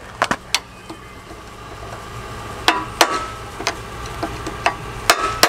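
Irregular metallic knocks and clinks from hand tools working on the rusted steel truck frame, about seven sharp strikes with a short ring, over a steady low hum.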